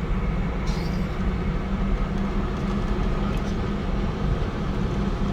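Steady low road and engine rumble of a car heard from inside the cabin while driving, with a brief faint hiss about a second in.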